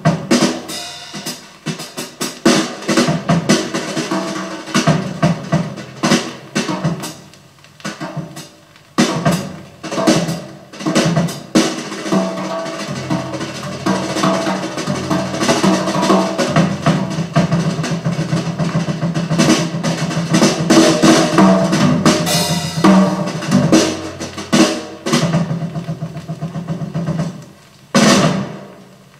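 Drum kit recording from a hi-fi audio check record, made in a reverberant room, played back over loudspeakers: a rapid run of drum hits and rolls.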